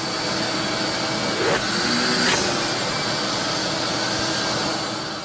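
Household vacuum cleaner running steadily, a constant rushing noise with a high whine.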